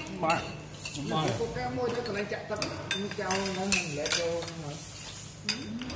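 Spoons and forks clinking and scraping against china plates and bowls during a meal, over low background talk.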